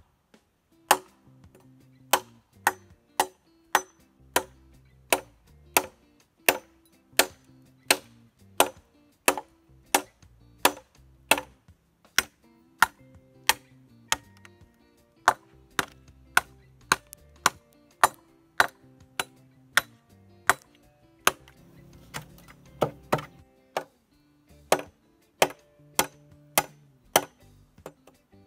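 Machete chopping into a thick green bamboo stalk: a long run of sharp strikes, roughly one to two a second, with a few short pauses.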